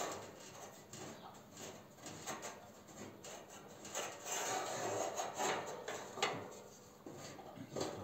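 Handling noise from working inside the slatted front of a custom PC case frame: a run of light clicks and knocks, with a longer scraping rub about four seconds in and a sharp knock about six seconds in.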